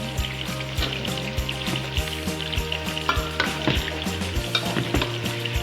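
Food sizzling in hot oil in a pan while it is stirred, with a spatula knocking against the pan again and again. A steady low hum runs underneath.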